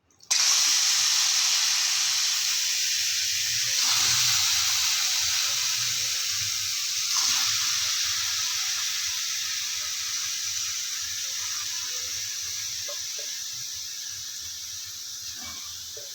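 Chicken sizzling in a hot pan without oil: a steady hiss that starts suddenly and slowly dies down, swelling briefly about four and seven seconds in.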